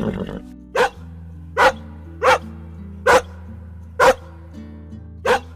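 A dog barking, six single barks about a second apart, over background music.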